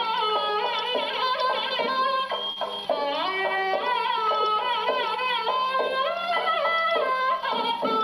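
A gramophone record playing a singing voice with a melody that glides between notes, over a steady low tone.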